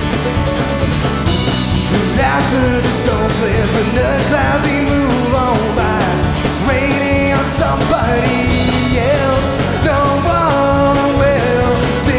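A band playing bluegrass-tinged alt-country music live, with mandolin, acoustic guitar and electric bass.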